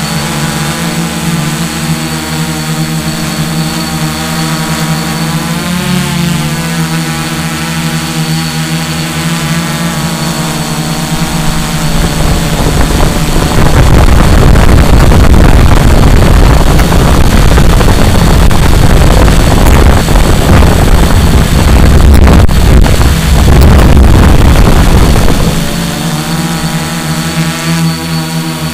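A small camera drone's electric motors and propellers whining steadily at one pitch. From about twelve seconds in, a loud wind rush on the microphone drowns the whine for about fourteen seconds, and the steady whine returns near the end.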